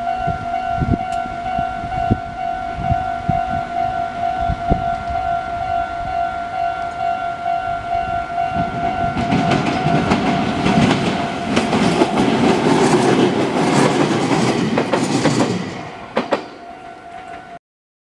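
Japanese level-crossing alarm ringing steadily. About halfway through, a Meitetsu electric train comes up and runs past over the crossing with a loud rumble and wheels clattering over the rail joints, then fades near the end.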